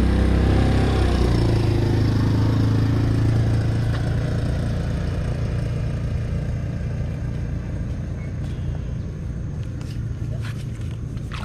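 A motor engine running close by, its pitch dipping slightly at first, then fading steadily as it moves away. A few short sharp clicks near the end.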